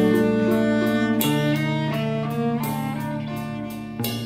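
Background music on string instruments, with notes changing in a steady rhythm about three times a second.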